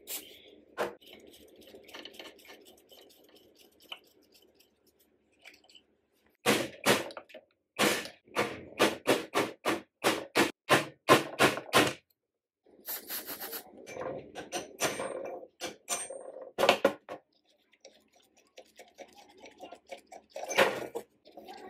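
Hand tools working on a rusty cast-iron sewing machine head: a run of sharp metal knocks, about three a second, then quicker clicks and scraping, and one loud knock near the end.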